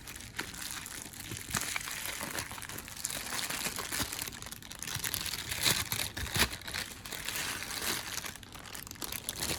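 Packaging crinkling and rustling, with irregular small crackles and clicks, as a camera lens is handled and unwrapped.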